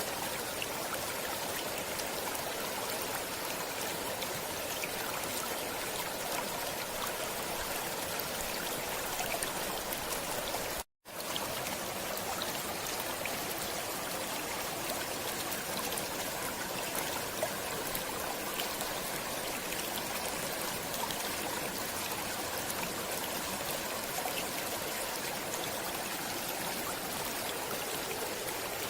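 Stream water flowing steadily. About eleven seconds in, the sound cuts out completely for a split second and then resumes unchanged.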